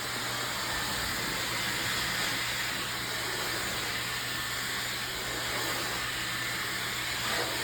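Dyson Supersonic hair dryer running steadily with the flyaway attachment fitted: a constant rush of air with a faint high whine.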